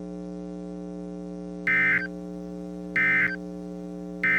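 Emergency Alert System end-of-message data burst sent three times: three short bursts of shrill two-tone digital warble about 1.3 seconds apart, the last near the end. They sound over a steady electrical hum.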